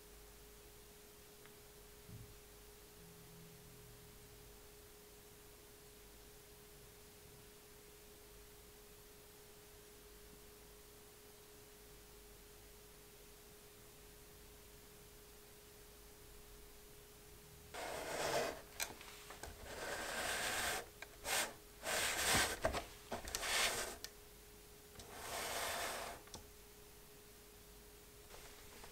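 Near silence with a faint steady hum, then, about two-thirds of the way in, a run of short rustling and rubbing noises: handling noise.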